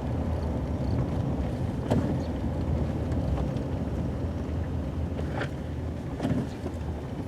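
Cabin noise of a Toyota Tacoma pickup: a steady low engine and road rumble with a few faint clicks, slowly getting quieter.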